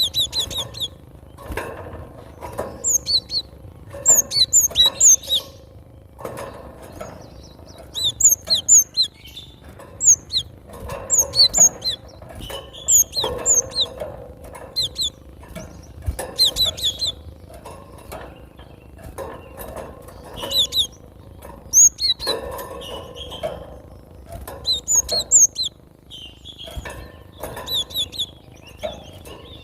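Cinereous tit (gelatik batu) singing: short bursts of sharp, high, repeated notes in phrases every second or two.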